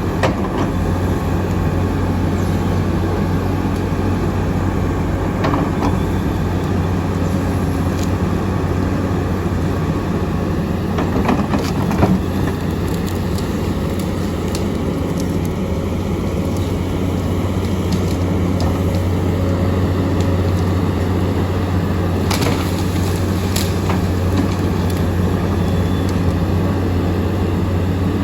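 Komatsu D85EX bulldozer's diesel engine running steadily with a low drone, with a few sharp knocks over it.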